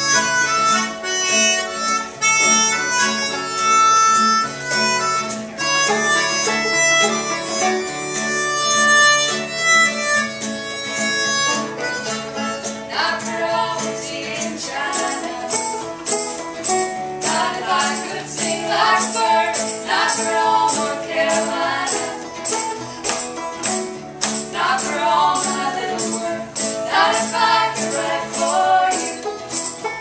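Acoustic folk band playing. A melodica carries the melody over strummed acoustic guitar and banjo, with an egg shaker keeping a steady beat. About thirteen seconds in, women's voices come in singing.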